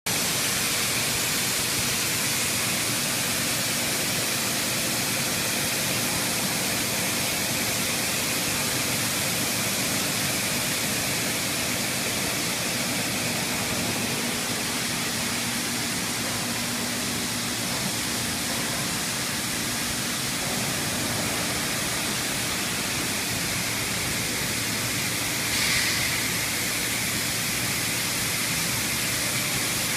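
DMG DMU85 five-axis machining center deep-hole drilling with a long coolant-through drill: a steady hiss of high-pressure coolant spraying inside the enclosure along with the running spindle and drill, with a faint high steady tone over it. A brief louder sound rises out of it about 26 seconds in.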